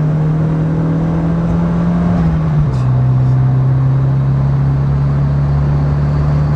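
Turbocharged Volvo engine running steadily under way, heard from inside the car, with boost turned up to about 12 psi. Its pitch drops a little about two and a half seconds in.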